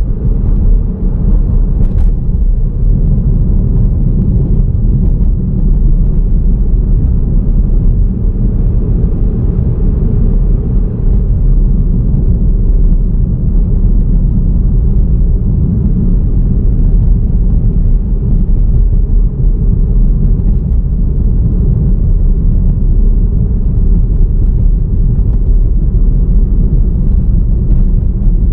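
A car driving along a road: a steady low rumble of road and engine noise that does not rise or fall.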